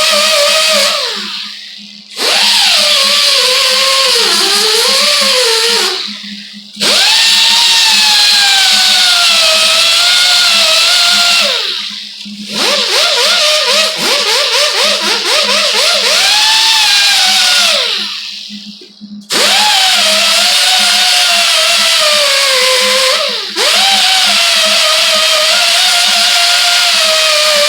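Electric power tool run in spells, its whine sagging and rising in pitch as it is worked and winding down each time it is switched off, then starting again, about five times.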